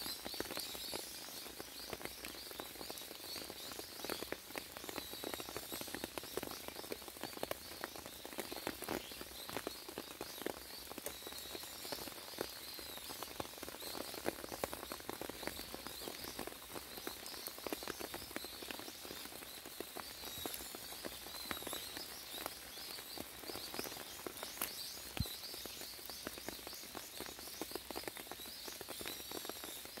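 Steady rain pattering, a dense stream of small drop clicks, with birds chirping high over it now and then.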